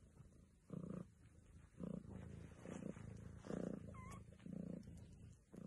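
Domestic cat purring, the purr swelling and fading in a regular rhythm about once a second with each breath. A faint short squeak comes about four seconds in.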